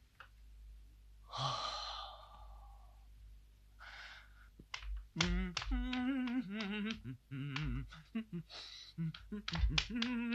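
A man's long, breathy sigh, followed a few seconds later by a run of wordless voice sounds with a wavering pitch.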